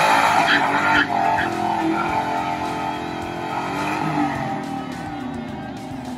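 Ford Mustang's engine revving hard in a stationary burnout, the rear tyres spinning on the pavement. The revs rise and fall, then ease off as the sound fades toward the end.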